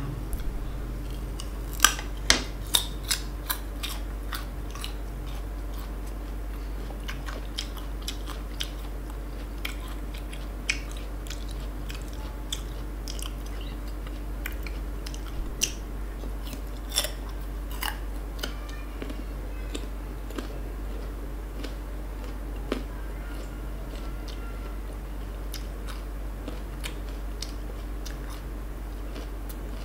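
Biting and chewing crisp unripe green fruit: sharp crunches that come in clusters, the loudest about two to three seconds in and again around fifteen to eighteen seconds, with quieter chewing between.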